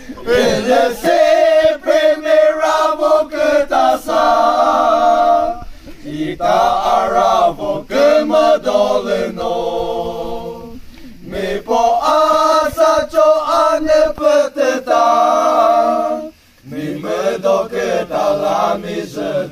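A group of men singing together without instruments, in sung phrases several seconds long with short breaks between them.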